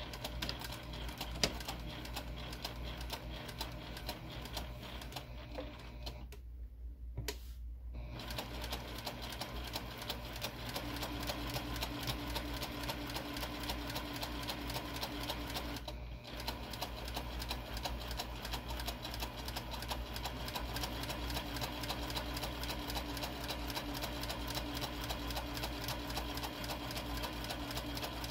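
Juki sewing machine stitching a seam through several pinned layers of fabric: a fast, even patter of needle strokes over the motor's hum. It stops for a second or so about six seconds in and for a moment again around sixteen seconds, then runs on steadily.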